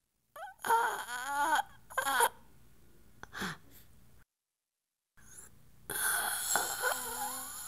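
A woman's wordless wailing in wavering, sliding cries that break off; after about a second of dead silence a longer, fuller wail starts near the end.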